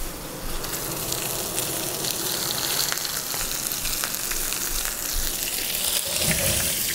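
Three thick steaks sizzling steadily in a very hot cast-iron skillet, with fine crackling spatter, as the seared pan goes into the oven under the broiler.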